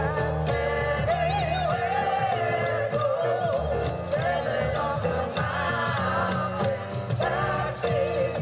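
Christmas music with jingle bells shaken in a steady beat over a wavering melody and a bass line.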